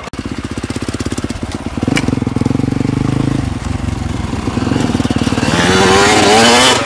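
125cc two-stroke motocross bike running at low revs with a steady rapid firing beat, then revving up with a rising pitch near the end, loudest there.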